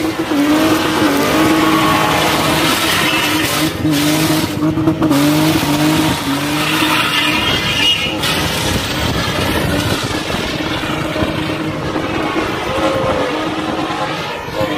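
BMW E30 spinning in tight circles: the engine is held at high revs with its note wavering up and down, over the hiss and squeal of the spinning rear tyres.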